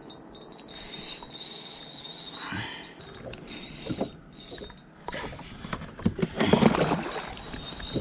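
Fishing reel being cranked to bring in a hooked fish: a fast mechanical clicking that grows louder over the last few seconds.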